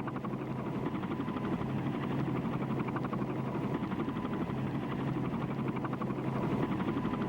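Steady engine drone with a fast, even pulsing and a low hum.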